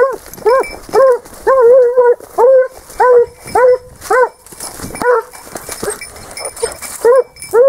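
Spanish hound (sabueso español) baying on a wild boar's scent trail: a quick run of short, arching bays, one or two drawn out a little longer. They break off about five seconds in, then two more come near the end.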